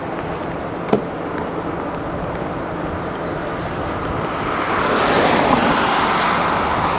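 Vehicle driving, a steady rush of road and wind noise that swells louder about four and a half seconds in, with one sharp click about a second in.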